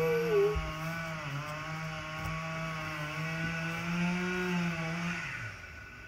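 Chainsaw at full throttle, held under cut for about five seconds with its pitch wavering slightly, then let off so that the engine note falls away near the end.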